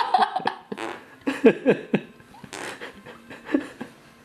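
A newborn baby passing gas: a series of short, irregular farts.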